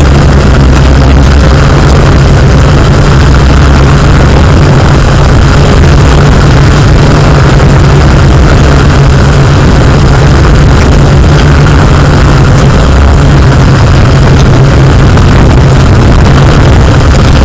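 Yuneec Q500+ quadcopter's rotors hovering: a loud, steady hum with a low drone, picked up close by the aircraft's own camera microphone.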